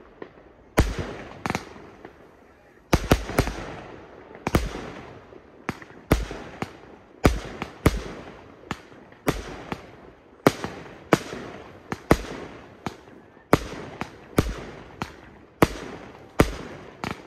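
Aerial fireworks bursting overhead in a rapid string of sharp bangs, one or two a second with some close together in clusters, each bang trailing off before the next.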